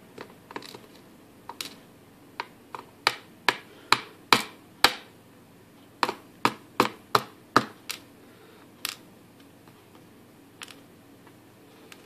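Small lock pins from a BKS rim cylinder's brass plug clicking onto a plastic pin tray and against the plug as the cylinder is gutted. There are sharp clicks about two or three a second, loudest and densest in the middle, with lighter ticks before and after.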